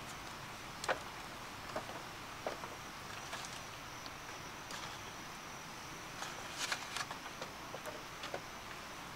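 A steady, thin, high insect drone, with scattered sharp clicks and light knocks: the loudest about a second in, and a quick cluster of them about two-thirds of the way through.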